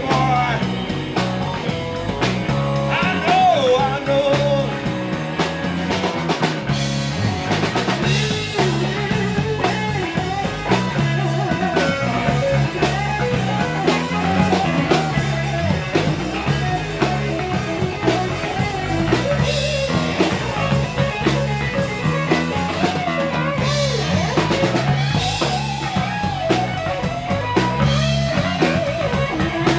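Live rock band playing an instrumental passage: electric bass, drum kit and electric guitar with a steady beat.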